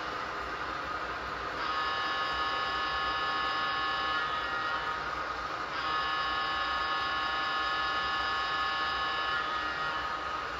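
HO scale model diesel locomotive's sound-decoder air horn sounding a chord of several notes in two long blasts, the second a little longer. Underneath runs a steady hiss and hum of the model trains running.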